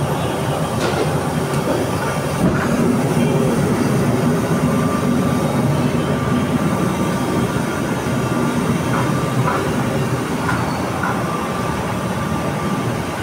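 Steady rumbling roar of a big aluminium pot of sugar syrup at a hard rolling boil over its fire, with rasgullas cooking in it, and a few light ladle clinks.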